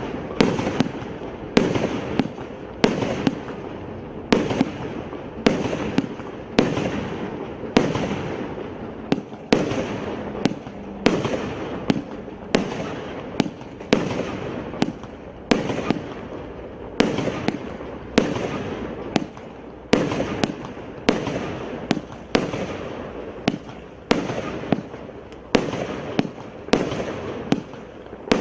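Consumer multi-shot fireworks cake (84-shot battery) firing a steady run of loud bangs, about three every two seconds, each with a fading tail.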